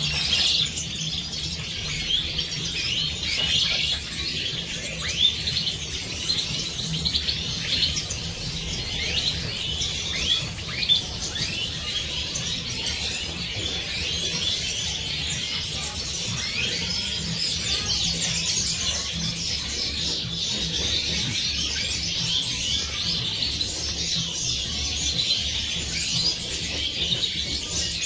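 A flock of Siberian goldfinches (Carduelis carduelis major) twittering and chirping together in a continuous, overlapping chorus of quick notes, over a steady low hum.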